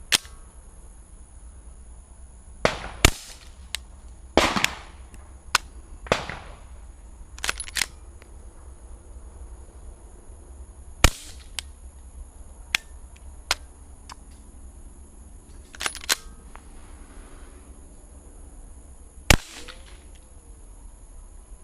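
Glock 17 pistol with a SilencerCo threaded barrel being fired. It gives about a dozen sharp shots at uneven intervals, some in quick pairs and others several seconds apart, as the pistol keeps failing to feed and eject with this barrel.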